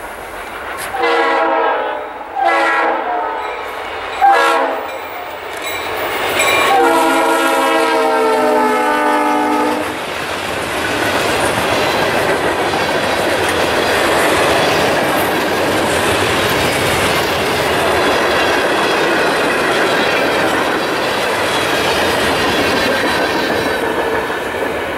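Diesel freight locomotive's multi-chime air horn sounding four blasts, the last one long, the pattern of a grade-crossing warning. Then the freight train rolls past, steel coil cars clattering over the rail joints in a steady rumble.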